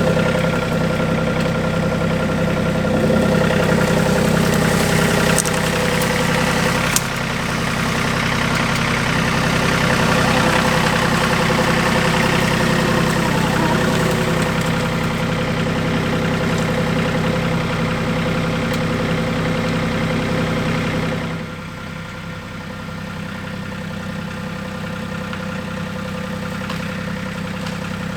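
Compact tractor engine running steadily, dropping to a lower, quieter run about three-quarters of the way through.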